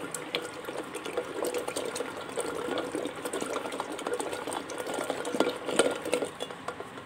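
Electric hand blender running in a steel pot of yogurt, its motor humming under the wet churning and sloshing of the yogurt being blended smooth.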